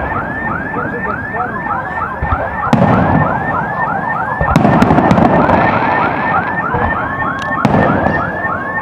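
Fireworks salute going off: deep booms and sharp cracks come every second or two, loudest about three, four and a half and seven and a half seconds in. A car alarm warbles without a break under them, about four rising-and-falling chirps a second, and a steady alarm tone joins near the end.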